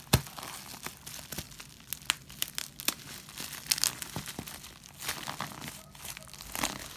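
Plastic diaper packaging being torn open and crinkled by hand: irregular rustling with sharp crackles and snaps.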